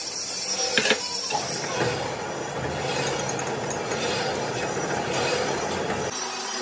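A sharp metallic clank as the chuck key works a four-jaw lathe chuck, then steady mechanical running noise from machine-shop equipment that changes abruptly near the end.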